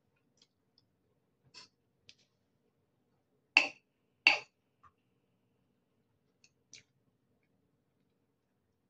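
Eating at a table: scattered soft clicks, then two sharp clinks a little under a second apart, about three and a half seconds in, of a metal fork or spoon knocking a ceramic noodle bowl.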